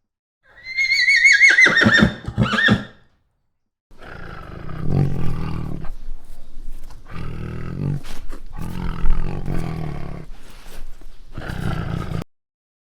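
A horse whinnying: a wavering high call lasting about two seconds that breaks off near its end. A few seconds in, a long stretch of low, rough animal sounds with short breaks follows and runs for about eight seconds.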